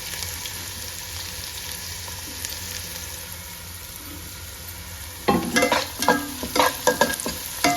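Sliced onion frying in hot oil in a pan, a steady sizzle. From about five seconds in, a spoon or ladle stirs it, clinking and scraping against the pan several times, louder than the sizzle.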